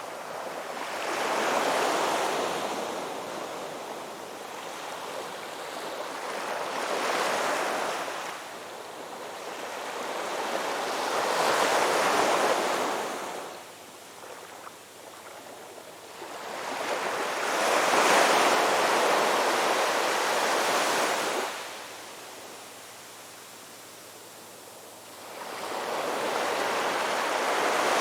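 Ocean waves breaking on a beach and washing up the shore, the surf swelling and fading in slow surges every five or six seconds, with quieter lulls between.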